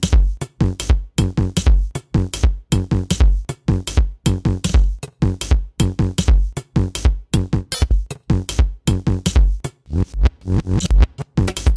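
Electronic background music with a steady drum-machine beat and deep bass.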